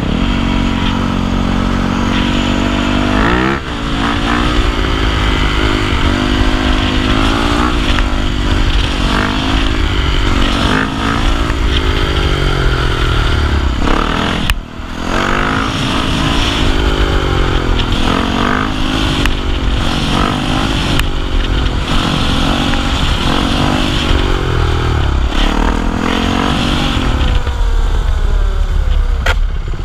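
Motorcycle engine under way, revving up and dropping back over and over, its pitch climbing and falling repeatedly, with two brief breaks in the sound.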